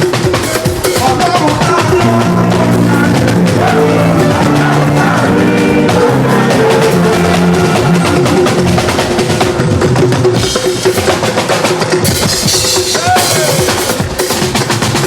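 Live band music led by a drum kit, with bass drum and snare hits throughout and a stepping bass line.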